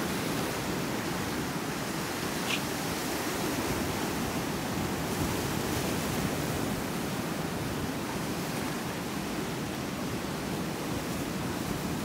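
Ocean surf washing against a rock shelf, a steady wash of noise with no breaks.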